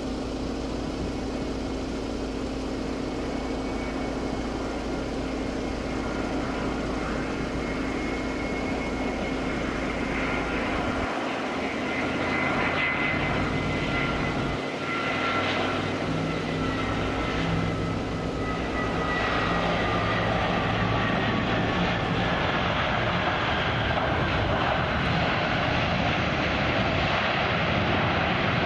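Twin-engine jet airliner landing: a steady jet rumble with a high engine whine that slowly falls in pitch as it comes in over the runway. About two-thirds of the way in it turns into a louder, broader rushing roar as the plane rolls out on the runway, the engines spooling up for reverse thrust.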